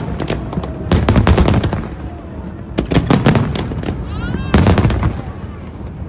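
Aerial fireworks going off in three rapid volleys of sharp crackling reports over a low rumble of booms, each volley lasting about half a second, roughly a second and a half apart.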